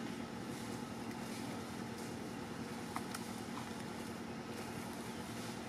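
Steady low hum of a distant engine over outdoor background noise, with a faint click about three seconds in.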